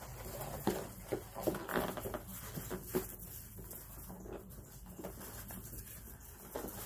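Standard poodle puppies playing, with a handful of short, sharp sounds in the first three seconds, then quieter scuffling.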